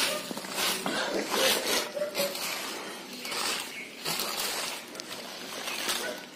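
Long-handled grass broom sweeping dust and litter across a dirt path, in repeated scratchy brushing strokes.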